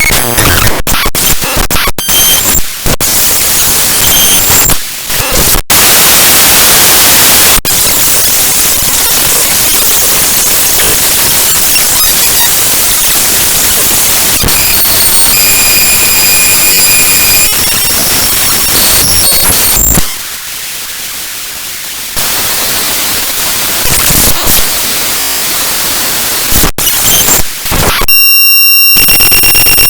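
Raw bytes of a read-only .dmg disk image of a downloads folder played back as audio: loud harsh static that switches abruptly between textures. Brief high steady tones sound around the middle, it drops to a quieter stretch about two-thirds in, and near the end it turns to a buzzing tone.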